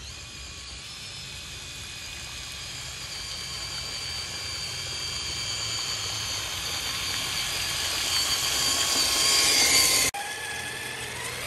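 Traxxas TRX-4 Sport RC truck on tracks: its electric motor and drivetrain give a steady, high-pitched whine that grows louder as the truck comes closer. About ten seconds in, the whine cuts off sharply and then carries on quieter.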